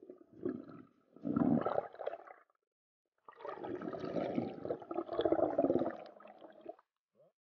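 Water gurgling and bubbling around an underwater camera as it rises toward the surface, in two bursts of a few seconds each.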